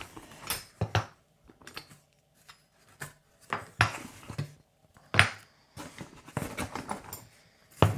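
Jaw harps on wooden blocks being taken from a cardboard box and set down on a wooden workbench: a series of scattered knocks and light metal clinks.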